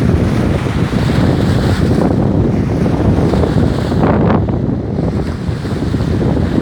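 Strong wind blowing on the microphone over lake waves washing and breaking on the shore, a steady noise that brightens briefly with one louder wave about four seconds in.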